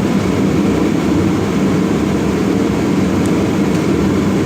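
Steady, loud, low mechanical drone that runs unchanged, with a faint tick about three seconds in.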